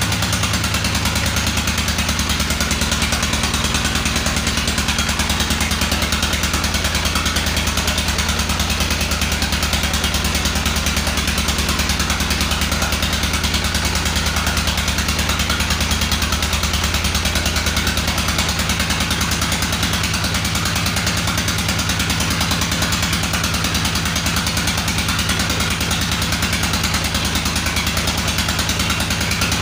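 Old Petter single-cylinder diesel engine running steadily while driving a dynamo to generate electricity, with a fast, even firing beat.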